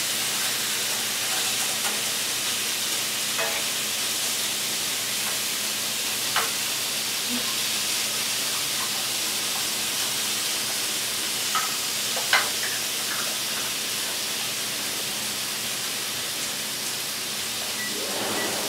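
Food sizzling in a frying pan on the stove: a steady hiss with a few brief pops or clicks.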